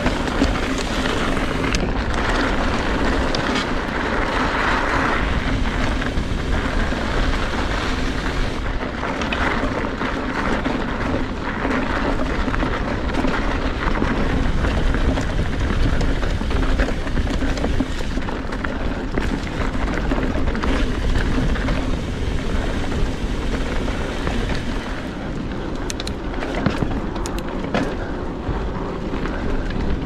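Wind rushing over a GoPro microphone and the rumble and rattle of a Trek Fuel EX 7 full-suspension mountain bike riding fast down a dirt trail, steady throughout, with a few sharp clicks near the end.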